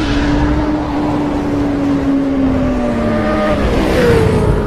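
Motor vehicle engine with a rushing noise, its pitch falling slowly and then dropping faster near the end, like a vehicle going by.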